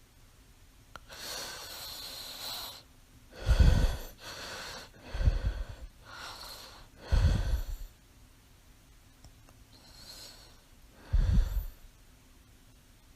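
A woman with mild sleep apnea breathing and snoring in her sleep. A long breath comes about a second in, then four short, low, loud snores, with softer breaths between the first three and a longer gap before the last.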